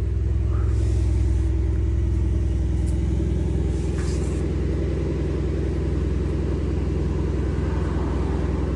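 An engine idling steadily nearby, a low even rumble that does not change in pitch.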